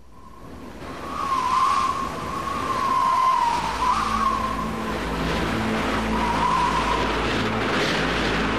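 Howling mountain wind: a rushing hiss with a high whistle that wavers up and down in pitch, fading in from silence over the first second or two.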